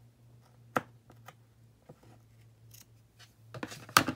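Scissors snipping through lace trim: one sharp snip about a second in, a few faint ticks, then a cluster of clicks and knocks near the end, the loudest as the scissors are set down on the table.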